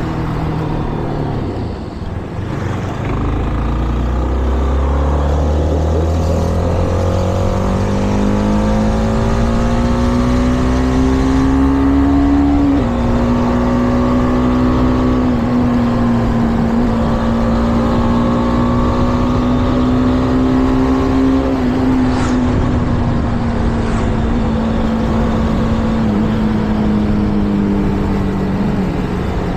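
Shineray Flash 250F motorcycle engine under way: the revs climb steadily for about ten seconds, drop sharply about 13 s in at a gear change, then hold nearly steady at cruise with small changes, easing off slightly near the end.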